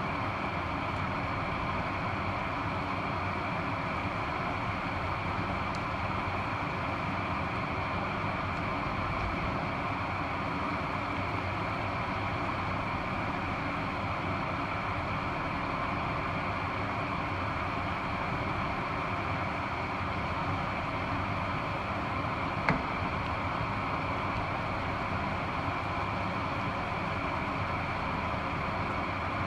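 Cream sauce with bacon, onion and mushrooms simmering in a frying pan: a steady bubbling hiss, with one sharp click about 23 seconds in.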